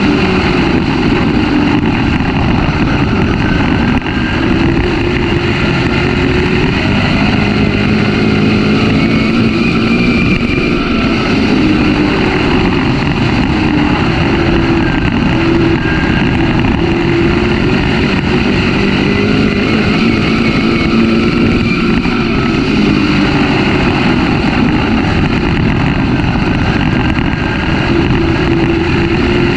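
Dirt-track race car engine running hard under racing load, heard from an onboard camera, loud and continuous, its pitch wavering up and down as the car circles the track.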